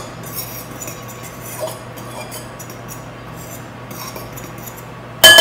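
A fork stirring dry flour, baking powder and salt in a mixing bowl: soft scraping with small ticks. Near the end comes one sharp, ringing clink of the fork against the bowl.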